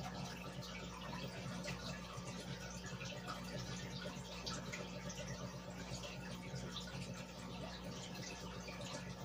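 Aquarium water bubbling and trickling steadily from an air-driven filter, with many small drips and pops over a low steady hum.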